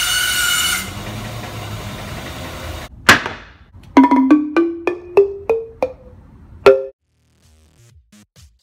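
Tuned wooden xylophone slats of a garden bench struck with a mallet: a single note, then a run of about seven notes climbing step by step at roughly three a second, ending on two notes struck together. A band saw can be heard running at the start and dies away about a second in.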